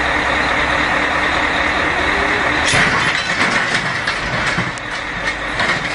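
A heavy vehicle's engine running steadily, joined a little before halfway through by a run of sharp knocks and clanks.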